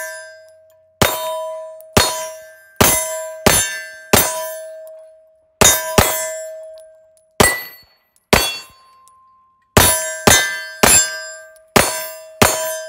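SIG P226 Legion SAO 9mm pistol firing a string of about fourteen shots, each followed by the clear ringing tone of a steel target plate being hit. The shots come every half second to a second and a half, with a short pause between some of them.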